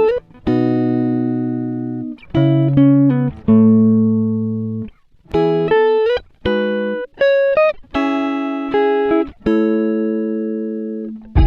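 Background music: plucked-string instrumental, a run of struck chords and short note phrases, each ringing out and fading before the next.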